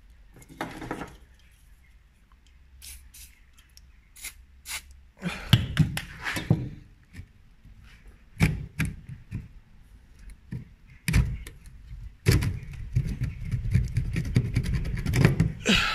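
Rusted Mauser K98 bolt being worked back and forth and drawn out of its corroded receiver: metal scraping and clicking with knocks, heaviest about five to seven seconds in and again over the last few seconds.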